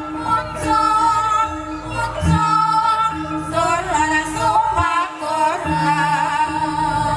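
Javanese gamelan music accompanying a kuda kepang dance: held, ringing metallophone tones with a few low drum strokes, and a woman's voice singing over them.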